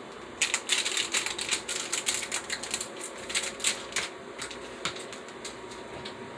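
Kitchen clatter: a quick, uneven run of light clicks and knocks, several a second, thinning out and stopping about five seconds in.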